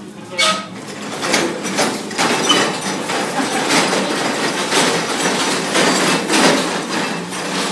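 Metal scaffold tower rattling and clanking as it is pushed across the floor, many loose metal knocks and clatters in a rough stream over a steady low hum.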